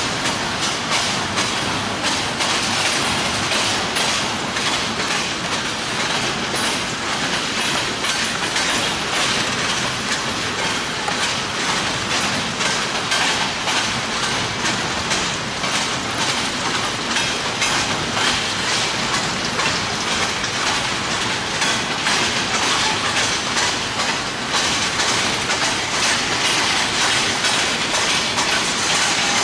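Freight train cars rolling past at steady speed, their wheels clicking over the rail joints in a continuous clatter.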